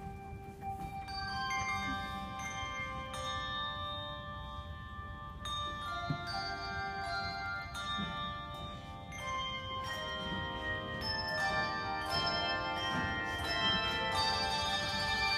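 Bell choir playing hand-held bells: many notes struck one after another and ringing on, overlapping into chords, growing fuller and a little louder toward the end.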